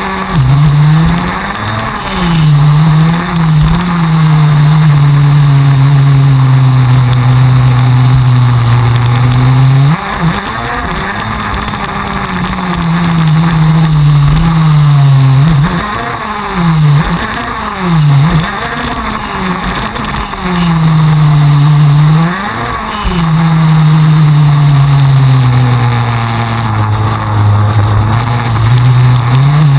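TM 125 cc two-stroke KZ2 shifter kart engine racing at full pace, heard onboard: revs climbing in long pulls through the gears, with the pitch falling away and jumping back up again and again as it shifts and brakes for corners.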